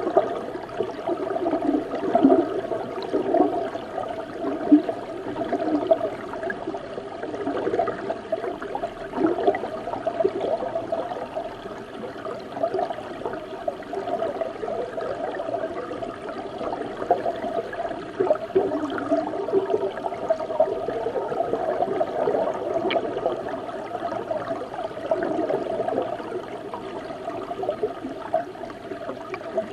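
Dōshi River water recorded from inside the river: a continuous, muffled bubbling and gurgling rush of flowing water, with little hiss in the highs.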